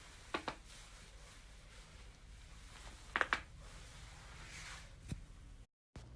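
A person's joints cracking: two short sharp pops near the start, a louder quick double pop about three seconds in, and one more pop near the end, over a low steady hiss.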